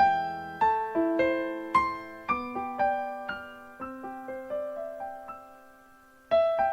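Background music: a slow solo piano melody of single struck notes that ring and fade away.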